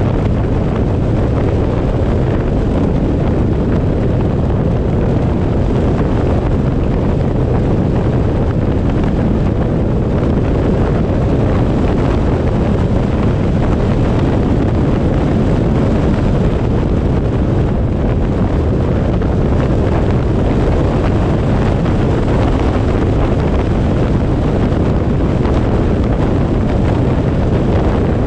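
Steady road and wind noise from a vehicle driving at speed along a highway, an even low rumble with wind rushing over the microphone.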